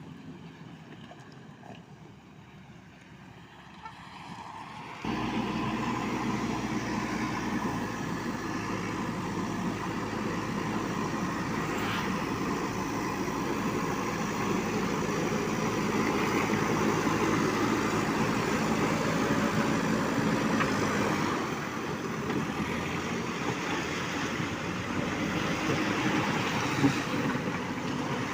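JCB 3DX backhoe loader's diesel engine running steadily at work. It is fainter for about the first five seconds, then abruptly louder.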